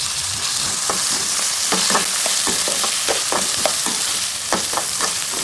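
Chopped vegetables (carrot and corn) sizzling in hot oil in a pan, with a spatula stirring them and knocking against the pan in quick, irregular taps.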